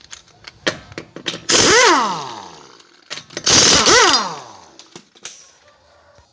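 Pneumatic impact wrench loosening a car's wheel nuts: two bursts of about a second each, the motor spinning up and winding down, with small clicks and knocks between.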